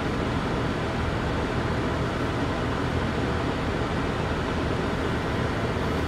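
Steady cabin noise inside a 1998 Lexus GS300: the inline-six engine idling with a low even hum under the hiss of the air-conditioning blower.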